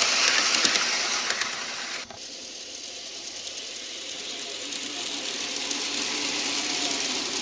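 Aristocraft large-scale model passenger train rolling on garden railway track, its wheels and running gear making a steady rapid clicking. The sound drops suddenly about two seconds in, then slowly grows louder as the train comes near again.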